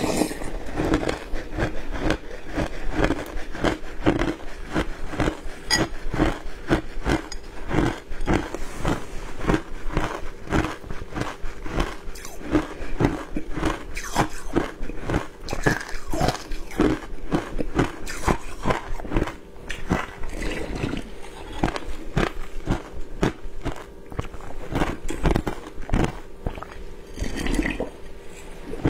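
Crushed matcha ice being chewed close to the microphone: a steady run of rapid, crisp crunches.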